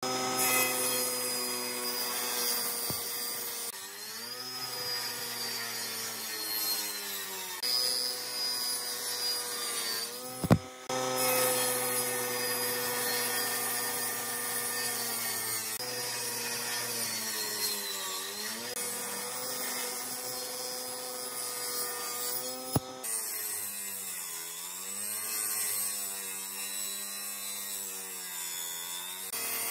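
Stationary woodworking machines, a jointer and a table saw, running and cutting pine boards, the machine pitch dipping and recovering several times. Two sharp clicks, one about a third of the way through and one a little past two-thirds.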